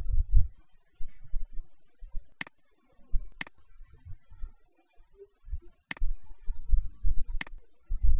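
Four sharp computer mouse clicks at uneven intervals, placing points with the pen tool, over scattered dull low thumps.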